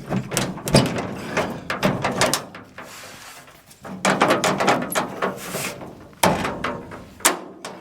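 A run of sharp metallic clanks, clicks and ratchety rattles, in clusters at the start, from about four seconds in, and again around six to seven seconds, with a lull near three seconds.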